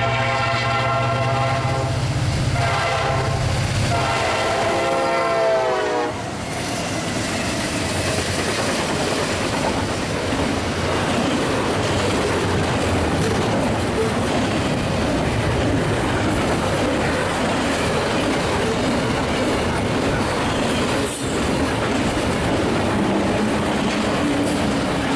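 CSX locomotive air horn sounding a chord for about six seconds, its pitch dropping as the locomotive goes by, then a train rolling past with wheels clicking over the rail joints.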